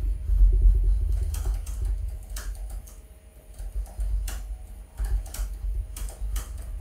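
Typing on a computer keyboard: scattered, irregular keystroke clicks. A low rumble runs underneath, loudest in the first second or two.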